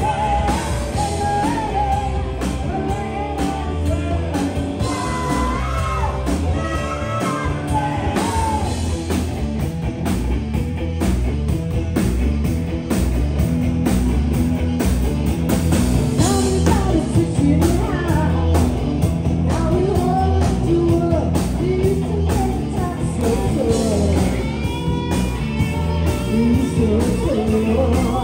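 Live rock band performing: a lead vocal sung over electric guitars, bass and a steady drum beat.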